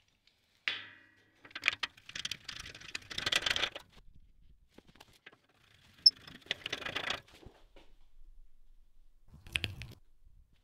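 Metal clinks and rattling as adjustable M12 machine feet are screwed into the legs of a steel lathe frame, with a ringing metallic clink about a second in and scraping rattles of threads and parts after it.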